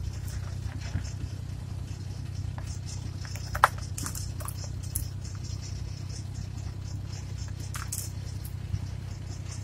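Engine and road noise heard from inside the cab of a moving vehicle: a steady low drone with scattered rattles and clicks, and one sharp click about three and a half seconds in.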